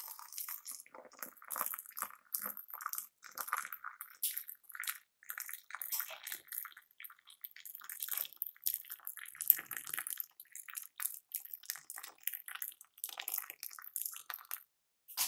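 Hot milk poured in a thin stream from a height into a mug of beaten coffee and sugar, splashing unevenly and frothing into foam.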